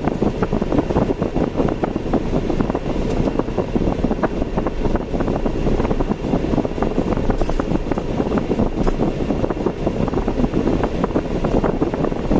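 Car driving on city roads: steady road and wind noise with a crackling, buffeting edge.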